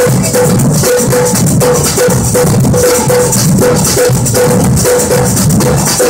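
Samba batucada drum group playing a steady, driving rhythm: deep surdo bass drums under a constant rattle of snare drums, with a short pitched note repeating about twice a second.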